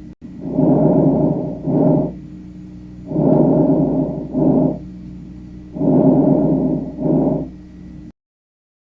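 A child's breathing, three breaths about every 2.7 s, each a longer noisy phase of about a second followed by a short one, over a faint steady hum. The sound stops abruptly near the end.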